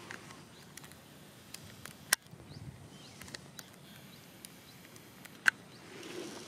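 Two sharp clicks, one about two seconds in and one about five and a half seconds in, with a few fainter ticks over a quiet steady background.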